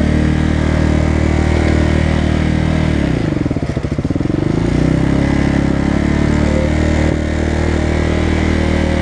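Motorcycle engine running steadily at low revs, loud and close to the microphone; about three seconds in the engine speed dips briefly and picks back up before settling again.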